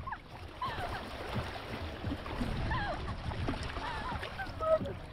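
Steady rush of wind and water on a boat at sea, with faint, scattered voices in the background.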